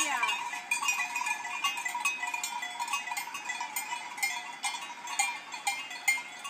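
Metal bells on grazing goats clinking and ringing without a set rhythm, several bells at different pitches sounding together.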